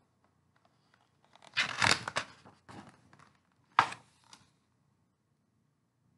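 A picture-book page being turned by hand: a second or so of paper rustling, then a sharp papery snap about halfway through as the page comes down, with a little handling after.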